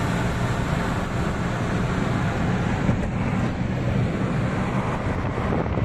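Steady road and wind noise inside a moving car's cabin at highway speed, with the low hum of the engine and tyres underneath.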